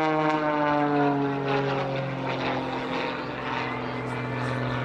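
Propeller engine of an MX2 aerobatic monoplane droning in flight. Its pitch falls over the first two or three seconds, then holds steady.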